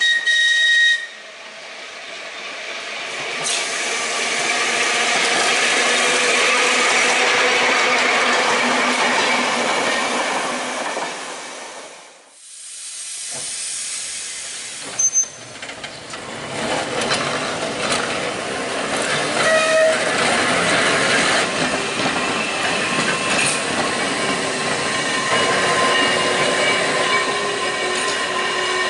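Manx Electric Railway tram sounding a short whistle, about a second long, then running past with a rush of wheel and motor noise that swells and fades. After a brief break, tram running noise returns steadily with a few short tones over it.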